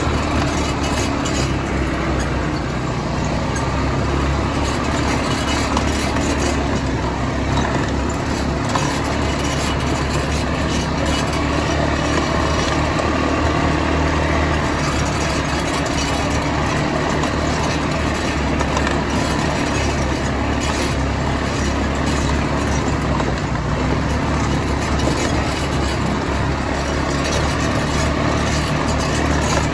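ATV (quad bike) engines running steadily as the bikes ride along a bumpy dirt trail, with a rough rumble and noise that do not let up.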